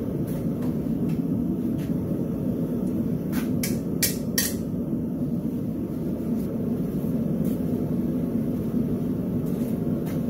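Long-handled steel tongs set against a steel anvil, giving four sharp metal clinks between about three and a half and four and a half seconds in, over a steady low roar.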